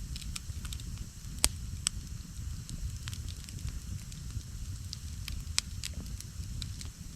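Wood campfire burning with frequent crackles and sharp pops over a steady low rumble; the loudest pops come about one and a half seconds in, just after, and about five and a half seconds in.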